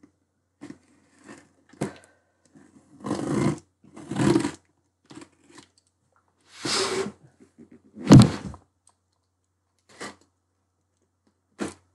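Box cutter slicing through packing tape on a cardboard shipping box in several short strokes, with small clicks between them and one sharp knock about eight seconds in.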